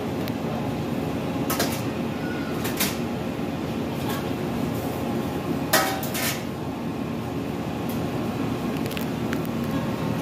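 Metal kitchen pans and a metal bowl clinking and clanking a few times, loudest about six seconds in, over a steady low hum.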